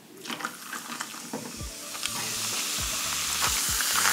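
Pepsi poured from a can over crushed ice in a glass: small crackles and clicks from the ice, then the soda fizzing with a steady hiss that builds about halfway through and holds.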